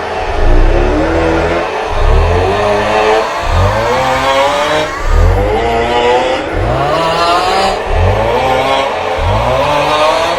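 The 'Aughhhh' snoring meme sound: a man's loud, drawn-out snore-like 'aughhh' vocalization looped over and over. Overlapping copies repeat about every one and a half seconds, with heavy low bass.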